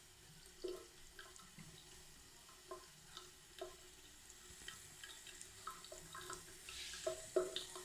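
A cat drinking water, faint small splashes and drips at an irregular pace over a light trickle, with a louder cluster of splashes about seven seconds in.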